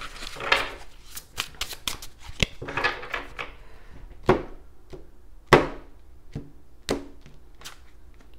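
A deck of tarot cards being shuffled by hand: a run of quick riffling clicks and card snaps, with sharp louder slaps about four, five and a half and seven seconds in, and cards set down onto the table near the end.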